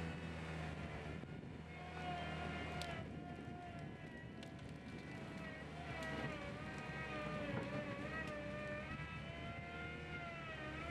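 Skid steer loader running, its engine humming steadily under a whine that rises and falls in pitch as the machine works, with a few sharp knocks.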